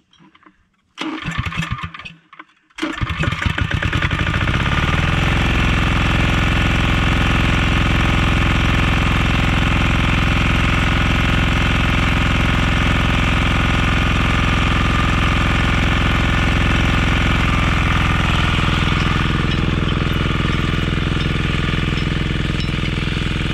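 Walk-behind rotary tiller's small engine being pull-started by its recoil cord: a short burst on the first pull about a second in, then it catches on the next pull about three seconds in, revs up and settles into steady running. Around eighteen seconds in the engine note deepens and turns heavier as the tines work into the soil.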